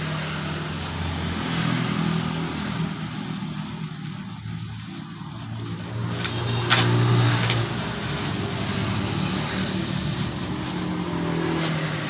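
Motor vehicle engines running and passing, the sound swelling and fading over the seconds, with a couple of sharp clacks about seven seconds in.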